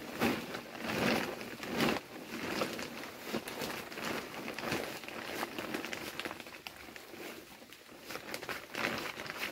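Dry bean plants rustling and crackling close by, in irregular bursts.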